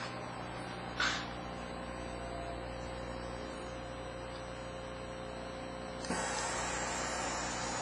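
CNC engraving machine humming with several steady tones, with a sharp click about a second in. About six seconds in, a louder hiss with a thin high whine sets in.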